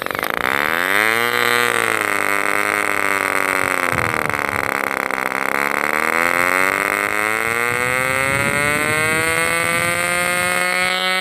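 Tiny homemade two-stroke nitro glow engine running. Its pitch climbs quickly at the start, sags to a low about five seconds in, then slowly rises again.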